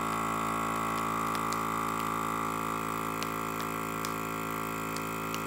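Small Ziploc countertop vacuum sealer's pump running steadily, sucking the air out of the bag during the vacuum stage before it seals. A few faint ticks sound over the hum.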